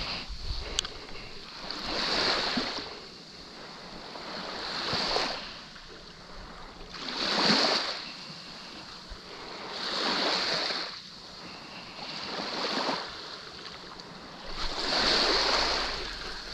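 Small waves washing up on a sandy shore: a soft hiss of surf that swells and fades about every two and a half seconds.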